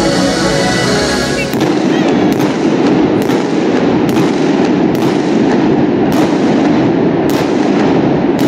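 Stadium music stops about a second and a half in. Indoor fireworks then go off under the dome roof: about eight sharp bangs, roughly one a second, over a continuous loud roar.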